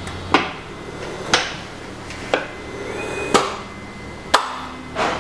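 Elisa 300 ventilator running its self-test with the patient port blocked: sharp clicks about once a second as its internal valves switch, over a low steady hum.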